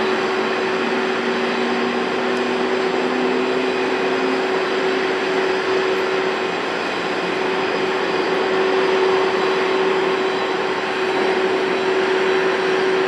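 Jet airliner engines running steadily: an even rush of noise with a held whining hum, and a second, lower tone that rises slightly and fades out about four seconds in.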